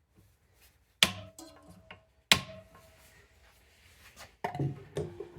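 Two sharp metal clanks about a second apart, each leaving a brief ringing tone, then a few softer knocks and rubbing near the end: metal clutch parts and tools being handled against metal.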